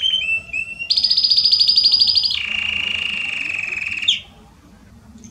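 Belgian canary (domestic canary) singing rapid rolling trills, first a high trill and then a lower one. The song ends with a quick downward slide about four seconds in.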